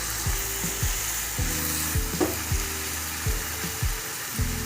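Grated carrot halwa frying in ghee in a kadai with a steady sizzle, stirred with a spatula in repeated strokes about two to three a second. The ghee is starting to separate, the sign that the halwa is nearly done.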